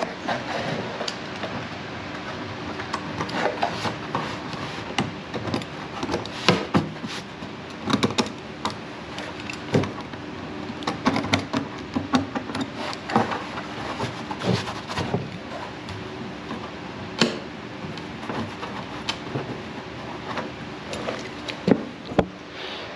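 Utility knife blade scraping and shaving the plastic burrs from the rim of a freshly drilled hole in a plastic barrel: irregular short scrapes and small clicks and knocks against the drum wall.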